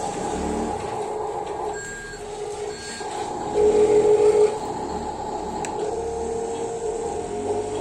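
Electric motors and plastic gearboxes of Huina radio-controlled construction models whining as they move and dig sand, their pitch shifting as the controls change. About halfway through a louder tone pulses rapidly for about a second.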